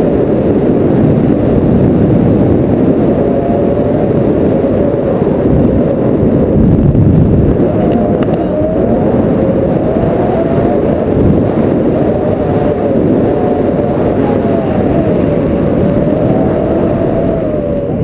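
Wind rushing over an action camera's microphone in paraglider flight: a loud, steady rumble, with a faint wavering whistle that rises and falls in the second half.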